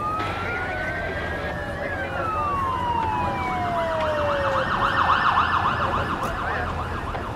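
Several fire engine sirens sounding at once: slow rising and falling wails cross over each other, and then a fast yelp runs from about three and a half to six and a half seconds in, the loudest part.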